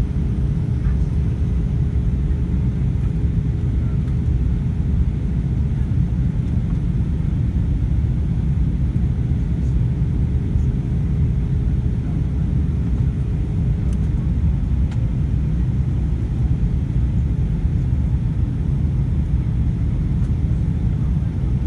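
Steady low cabin rumble of an Airbus A320-232 in flight, heard from a window seat over the wing: its IAE V2500 engines and the airflow over the fuselage. A faint steady hum runs along with it and fades out about two-thirds of the way through.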